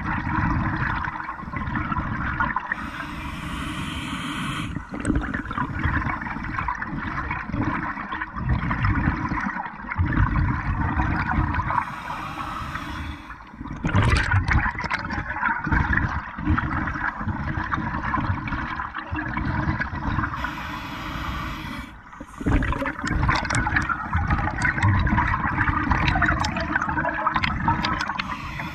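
Scuba diver breathing underwater through a regulator: a short high hiss on each inhale, about every eight seconds, with long rushes of exhaled bubbles between them.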